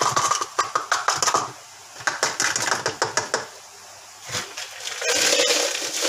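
Coarse dishwasher salt rattling through a plastic funnel into a dishwasher's salt reservoir as the funnel is jiggled up and down: bursts of small clicks and rattles, with a steadier hiss about five seconds in.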